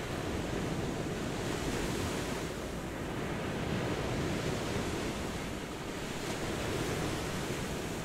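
Ocean surf: waves breaking and washing up a sandy shore in a continuous rush that swells and eases as the breakers come in.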